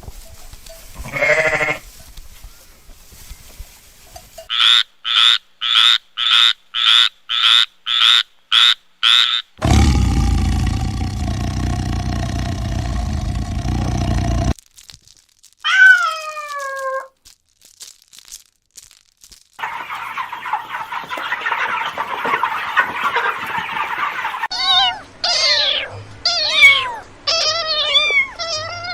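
A sequence of different animal calls: a run of about ten short, evenly spaced calls, about two a second, then a single falling call, and several more falling calls near the end, broken by two stretches of noisy sound.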